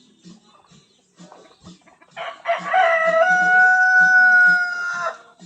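A rooster crowing once, about two seconds in, a single cock-a-doodle-doo of about three seconds ending in a long held note.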